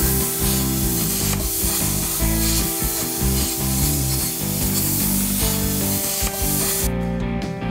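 CNC plasma cutter torch cutting steel plate: a steady, loud hiss of the arc, over background music with guitar. The hiss cuts off suddenly near the end, leaving only the music.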